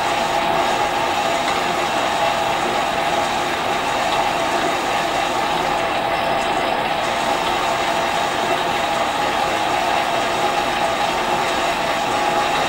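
Metal lathe running steadily under power, taking a light facing cut of a few thousandths off the end of cast-iron piston-ring stock.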